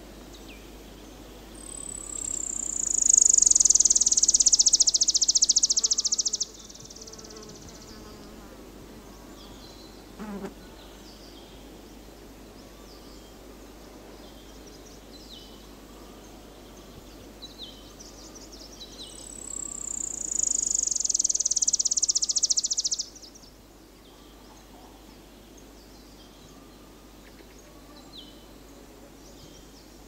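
Forest ambience in which an orange-barred leaf warbler gives two long, high, buzzing trills, each sliding down in pitch, swelling, then cutting off suddenly. Faint chirps of other small birds fall in between, with a brief low call about ten seconds in.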